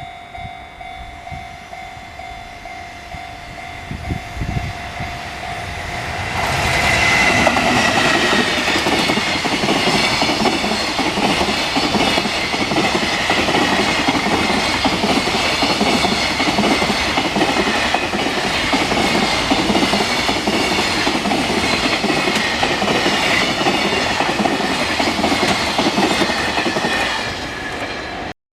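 Japanese level-crossing alarm ringing steadily, then a long train passes over the crossing from about six seconds in. Its loud wheel-and-rail noise lasts some twenty seconds and drops away near the end.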